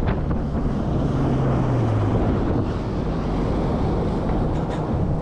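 Bass boat running across the lake: a steady low outboard-motor rumble under heavy wind buffeting the microphone.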